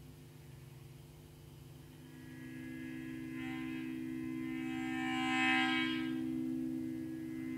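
Electric guitar strings sustained by an EBow: a steady drone of two low notes that swells in about two seconds in, its higher overtones brightening and then fading back around the middle, over a constant amplifier hum.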